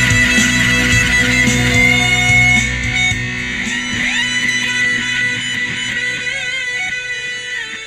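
Instrumental ending of a progressive rock track, guitar-led. The full band with bass and drums plays until about two and a half seconds in, then the low end drops away and held guitar notes with bends ring on, slowly getting quieter.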